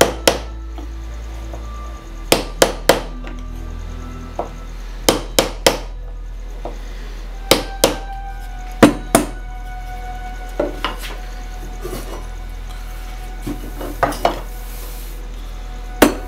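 Hammer striking a wooden-handled chisel as it cuts into the wooden body of a jointer plane, opening out the throat: sharp knocks in quick groups of two or three, a second or two apart. Soft background music underneath.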